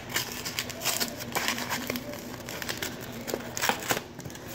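Skylanders Battlecast trading-card booster pack wrapper crinkling and tearing as it is opened by hand, in irregular crackly rustles.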